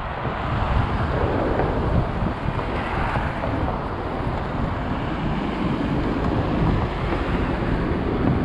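Wind buffeting the microphone in uneven gusts over a steady rush of passing road traffic on a bridge.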